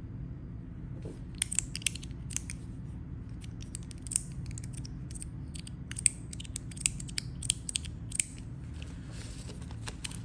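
A string of sharp, irregular clicks and snips from small hard parts being worked by hand, a dozen or more spread over several seconds.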